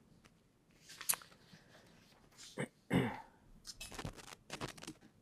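Sheets of paper being handled and turned over on a table, a series of short rustles. About three seconds in comes a brief throat clearing, the loudest sound.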